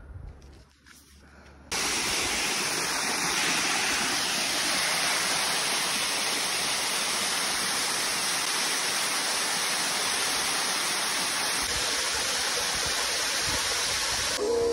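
Loud, steady rush of fast-flowing water, starting abruptly about two seconds in after a quiet moment.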